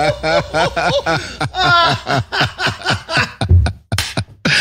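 Male laughter: a quick run of chuckles, about four or five a second, that tails off and breaks up near the end.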